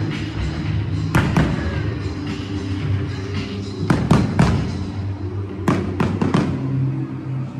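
Fireworks bursting over continuous music: sharp bangs about a second in, a quick group of three around the middle, and another quick group of several a little later.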